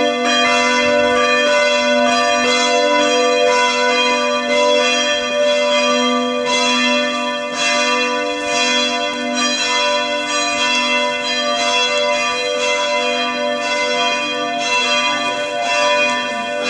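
Several church bells ringing together, their strikes overlapping in a continuous peal of long ringing tones.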